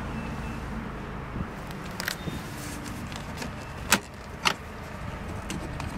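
Glove box latch of a 1957 Ford Thunderbird being worked by hand: a few short sharp clicks, the loudest about four seconds in and another half a second later, over a steady low background rumble.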